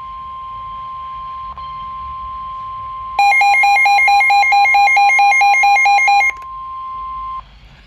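Midland WR120 NOAA weather radio sounding the steady 1050 Hz warning alarm tone that announces a severe thunderstorm warning. About three seconds in, a louder, rapid pulsing alarm beep (about six or seven a second) sounds over it for some three seconds. The steady tone cuts off shortly before the end.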